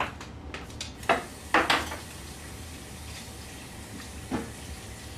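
Kitchenware knocking and clinking at a sink counter: a string of sharp clatters, loudest about a second and a half in, and one more knock near the end.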